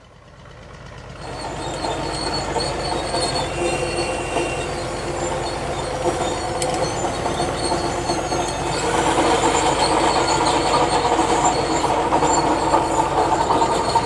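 HO scale model train running slowly: a steady mechanical hum with several held tones and rail noise as a loaded wood-chip car rolls along the track. It fades in over the first second or two and grows louder about nine seconds in.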